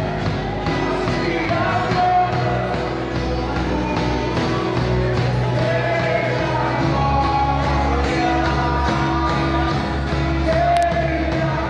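Worship song: music with a singing voice over a steady bass line.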